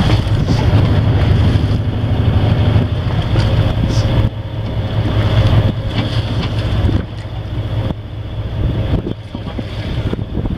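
Wind buffeting the microphone over the steady low hum of a fishing boat's engine; the wind eases slightly a few seconds in.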